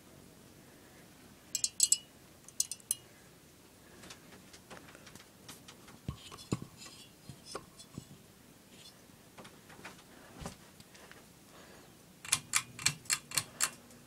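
Hampton Bay ceiling fan pull-chain switch clicking as the metal bead chains are pulled, with light chain rattle. Near the end comes a quick run of about seven sharp clicks, and a low steady hum sets in from the fan.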